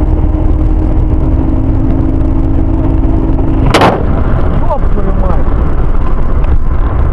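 Heavy road and wind rumble inside a car travelling at about 125–135 km/h, with a steady drone until a single sharp knock about four seconds in, as the dashcam falls from its mount.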